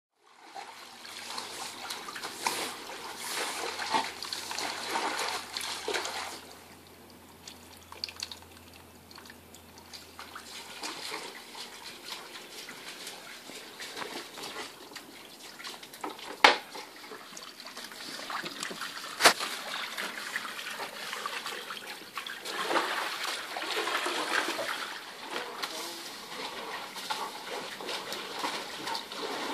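Shallow water splashing and trickling on the liner of a draining above-ground pool as an Alaskan Malamute moves about in it, busiest at the start and again near the end. Two sharp knocks about three seconds apart past the middle.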